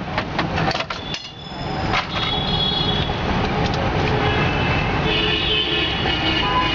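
Busy street traffic with a vehicle horn sounding, which sets in again about five seconds in; a few sharp clicks come in the first second.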